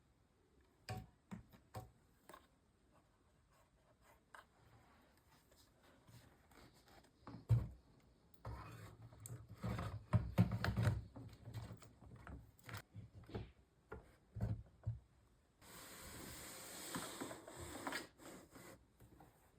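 Hands handling and fitting mini-PC components: scattered small clicks and knocks, with rubbing and scraping. About 16 s in comes a steady hissing rustle lasting a couple of seconds.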